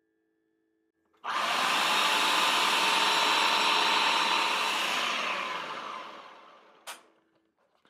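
Food processor motor and blade running through a wet chimichurri of herbs, garlic and olive oil: it starts suddenly about a second in, runs steadily for about four seconds, then winds down. A single sharp click follows near the end.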